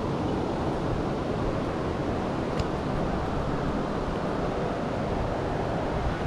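Steady rush of a river running over rocks and rapids.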